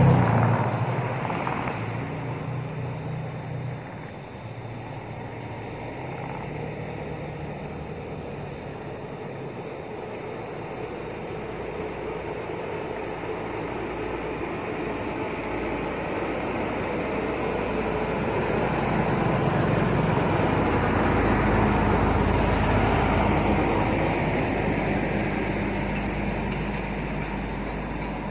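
Engine noise of passing motor traffic: a hum fading over the first few seconds, then a low rumble swelling and fading again later on.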